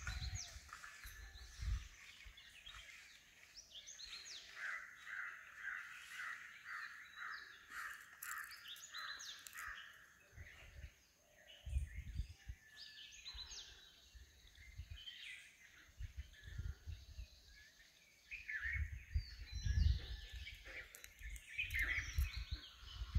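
Birds calling in the woods, with a long run of quickly repeated calls in the middle. Low rumbling bumps, the loudest things here, come in from about halfway and crowd the last few seconds.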